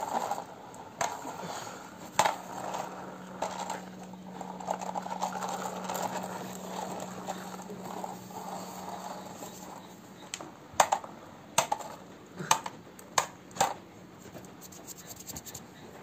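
Plastic toy vehicles being pushed and handled on a hard floor: a light rolling rattle through the first half, then several sharp plastic clicks and knocks in the second half.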